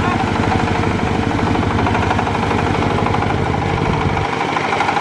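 Engine of the vehicle hauling the threshing machine running hard with a fast, even chugging pulse; the low pulsing drops away about four seconds in.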